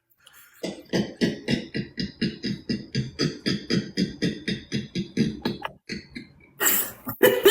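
A man imitating a John Crow (turkey vulture) with his voice: a fast, rhythmic, beatbox-like pulsing, about five pulses a second for about five seconds. A louder vocal burst follows near the end.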